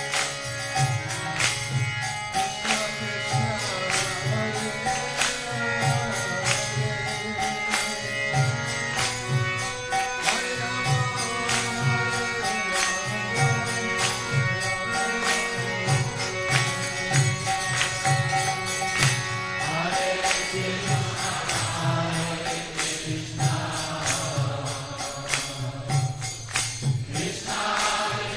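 Background devotional chant music with a steady drum beat of about two beats a second and jingling percussion over sustained tones. Singing voices come in during the last third.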